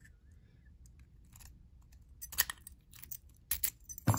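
Small metal clicks and clinks of interchangeable lock cores, a follower and keys being handled and set down, a few scattered clicks in the second half with the loudest near the end.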